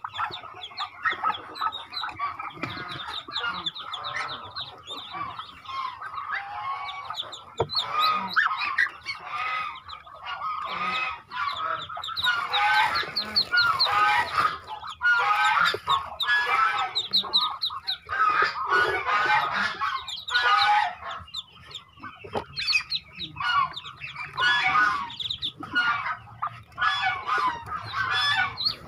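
Newly hatched Muscovy ducklings peeping, many at once: a dense run of short, high, quickly repeated calls that grows louder about halfway through as they are handled in the nest.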